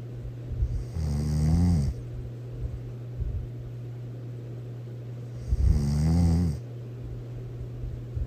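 A person snoring really loud: two snores about four and a half seconds apart, each lasting about a second, with a steady low hum underneath.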